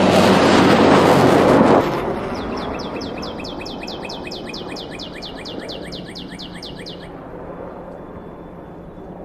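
Loud, steady noise with a low hum from an air-crash sound effect cuts off sharply about two seconds in and fades away. A bird then sings a fast trill of about two dozen quick down-slurred chirps, lasting about four and a half seconds.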